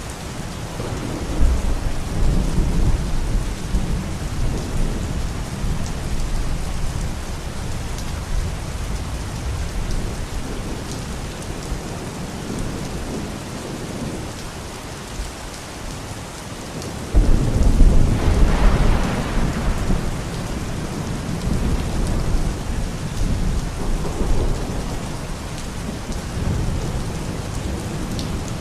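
Steady rain with rolling thunder: one long rumble begins about a second in, and a louder, sharper clap breaks in a little past halfway and rolls on for several seconds.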